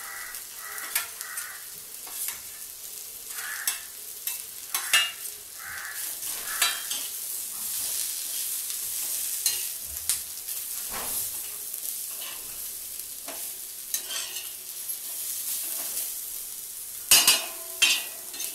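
Vegetables sizzling in oil in a pan while a metal spatula stirs and scrapes them, with repeated sharp clicks of the spatula against the pan and a few louder clanks near the end.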